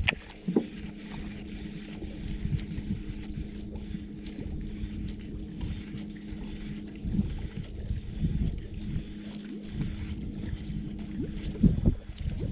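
Electric trolling motor humming steadily at one pitch, starting about half a second in and cutting off near the end, with wind rumbling on the microphone.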